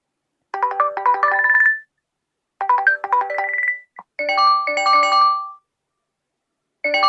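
Google Pixel phone ringtones playing. A short melody of quick notes ending on a held high note repeats twice with short gaps. About four seconds in, a different, higher-pitched ringtone melody starts and repeats.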